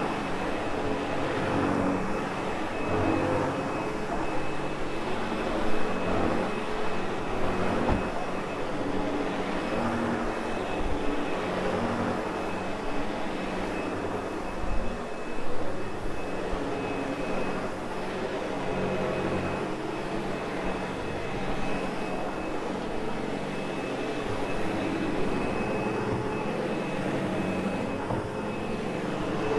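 Sebo X8 upright vacuum cleaner running on carpet, a steady motor drone with a thin high whine over it, louder for brief moments.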